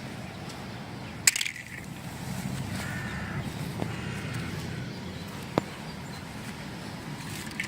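Hands handling plastic toy packaging: a sharp click about a second in, a softer rubbing handling noise for a few seconds, and another small click later.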